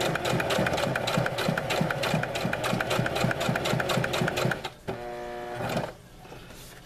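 Electric sewing machine stitching through layered fabric, its needle running in rapid, even strokes, several a second. It stops about four and a half seconds in, and a short, steady hum follows for about a second before it goes quiet.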